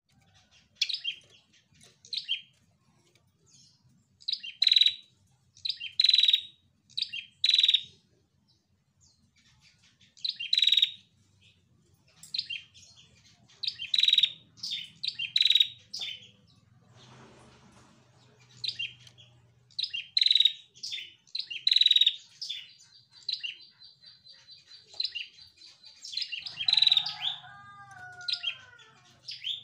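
Female red-headed prenjak calling: sharp, high chirps given in quick runs of one to four notes, with pauses between the runs. Near the end a thin steady whistle and a few lower, falling notes join in.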